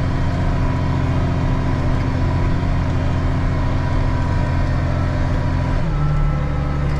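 Tractor diesel engine running steadily while pulling a grain cart, its note shifting slightly lower about six seconds in.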